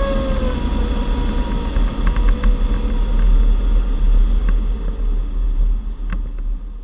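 Airflow noise in the cockpit of a G103 Twin Astir glider in flight as it pulls up: a low rumble with a steady whistling tone that drops slightly in pitch about half a second in and fades out over the next few seconds. A few light clicks near the middle and end.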